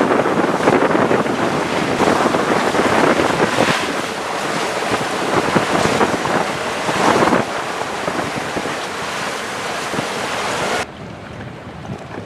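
Wind buffeting the microphone over the rush of sea water along a sailing yacht under way. The sound drops suddenly to a quieter level near the end.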